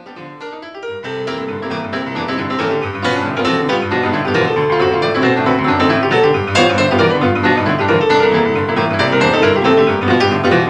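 Background piano music, swelling up over the first second and then playing steadily with a regular pattern of notes.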